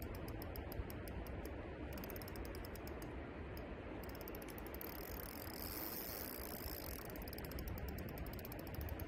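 Spinning reel being cranked on a bolognese rod, its gears ticking rapidly in several short runs, over a steady background hiss.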